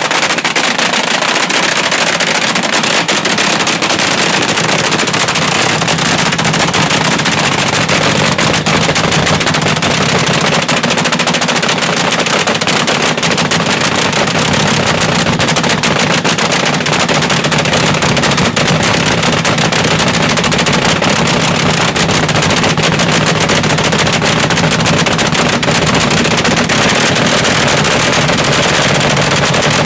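Supercharged front-engine dragster's engine running steadily through open zoomie headers: a loud, dense, rapid crackling exhaust note. It is fuelled without nitro.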